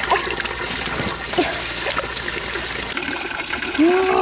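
Shallow stream water splashing and trickling as hands work in it, with a few small sharp splashes. Near the end a brief voice rises and falls in pitch.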